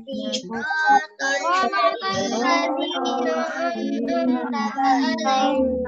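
Children's voices, with a woman's among them, chanting a prayer together in a sing-song unison.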